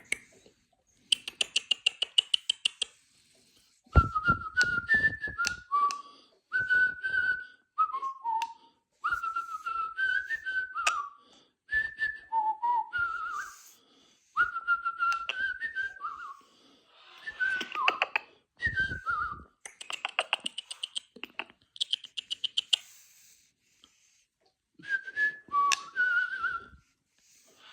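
Short whistled phrases, gliding up and down in pitch, repeated many times with short gaps, between trains of rapid clicking near the start and again past the middle.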